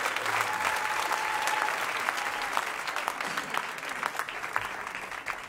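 Concert audience applauding, the clapping slowly thinning and fading.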